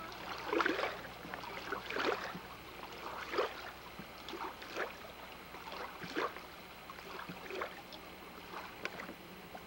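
Small waves lapping and splashing softly at the water's edge, in a regular rhythm of one splash about every second and a half.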